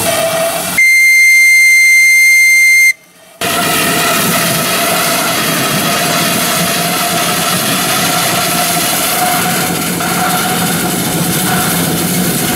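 Steam whistle on a 2-inch-scale Ransomes compound traction engine blown in one steady high-pitched note for about two seconds. After a brief break, the live-steam engine runs on with a steady hiss of steam.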